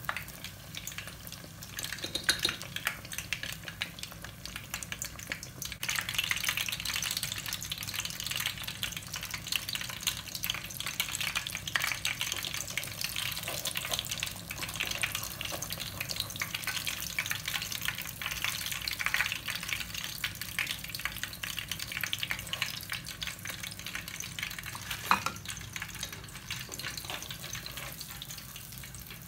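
Mini martabak parcels of filled spring-roll wrappers deep-frying in hot oil, with a steady sizzling and crackling. One sharp knock sounds near the end.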